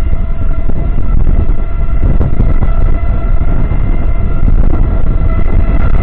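Parrot Mambo minidrone's four propellers whining steadily in a hover, several even tones held together over an uneven low rumble.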